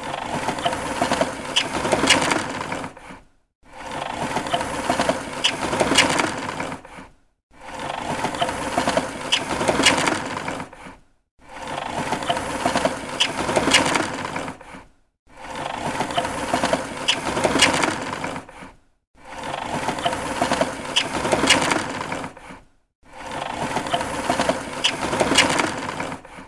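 A hand running along the slats of a plastic window blind, a rattling clatter of many quick clicks. It comes in about seven passes of roughly three seconds each, with short silent gaps between them.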